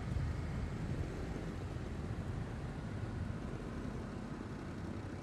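Mercedes-Benz E 350 e sedan driving at speed: a steady low rumble of engine and tyres on the road, with some wind noise.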